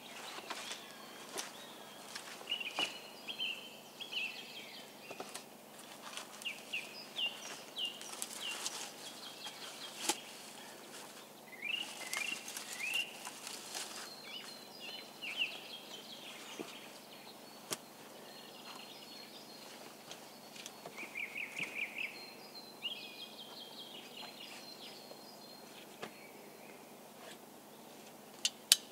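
Woodland birds singing and calling: repeated short chirps and a fast trill a little past the middle. Scattered light knocks and rustles of wood being handled, and two sharp knocks near the end.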